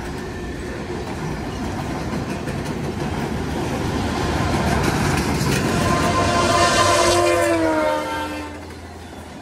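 Freight cars rolling past with a steady rumble, then a Via Rail passenger locomotive sounding its multi-note horn as it rushes by; the horn chord swells to the loudest point and drops in pitch as the train passes, and the noise falls away about eight seconds in.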